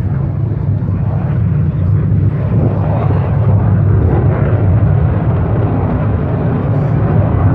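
F-35B Lightning II jet engine heard in flight during a display pass: a loud, steady low rumble with a rough hiss above it that swells a little midway and again near the end.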